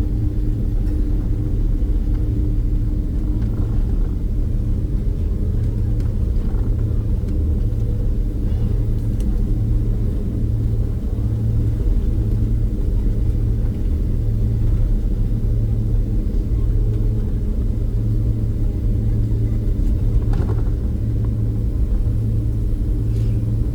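Steady low rumble inside the cabin of a Boeing 767-300ER rolling on the ground after landing: the engines running and the landing gear rolling along the pavement. There are a couple of faint knocks near the end.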